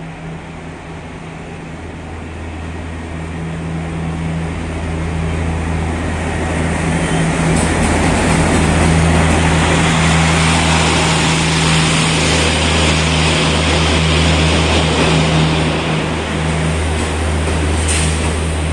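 ALCO WDM-3A diesel locomotive pulling a passenger train into a station, its engine drone getting louder as it approaches and passes, then the steady rumble of the coaches rolling by as the train slows for a halt.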